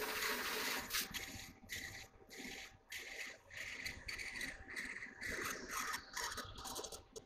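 CNC lathe cutting a spinning metal part under coolant: a scraping hiss that breaks off briefly many times, about every half second to a second.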